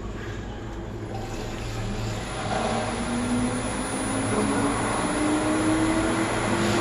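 Inverter-driven multistage pump starting up with new bearings, its motor hum rising smoothly in pitch as the inverter ramps up the speed; a faint high whine comes in about two seconds in. The pump still has air trapped in it and is not building its set pressure.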